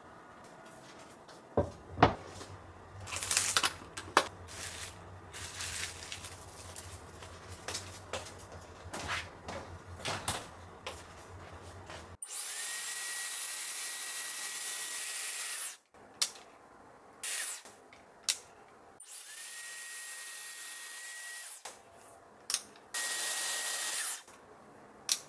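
Dyson Airwrap hair styler blowing in three spells of a few seconds each, a steady rush of air with a high motor whine, switching on and off abruptly. Before it come scattered light clicks and knocks over a low hum.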